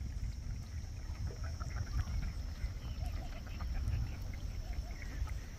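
Wind rumbling on the microphone, with many short bird calls chirping in the background.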